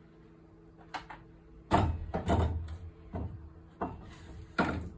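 About six separate wooden knocks and thuds of gate timber being handled, the loudest nearly two seconds in.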